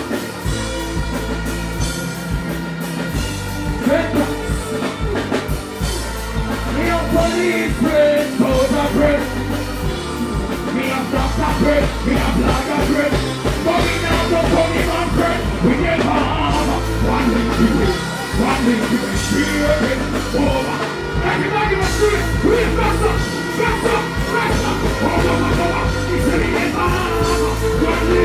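Live backing band playing loud through a stage PA, with drum kit and steady bass, and a voice singing or shouting over it at times.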